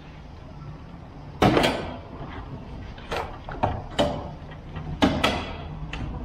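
Plastic front bumper fascia of a Camaro ZL1 being pulled off by hand: a series of sharp, irregular plastic knocks and clunks as its retaining clips let go. The loudest come about a second and a half in and around five seconds in.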